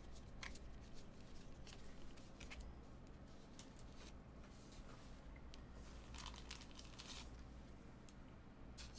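Faint, scattered rustling and light clicks of slick chrome trading cards being handled and slid against one another, over a low steady hum.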